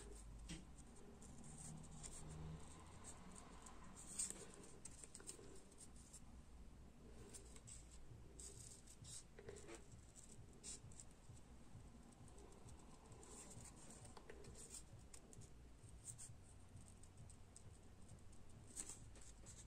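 Small pointed craft scissors making faint, irregular snips through paper while cutting around a stamped, coloured image, with light paper rustle; one snip about four seconds in is a little louder.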